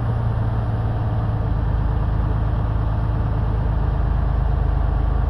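Semi-truck diesel engine held steady at about 1000 rpm on the throttle, heard from inside the cab.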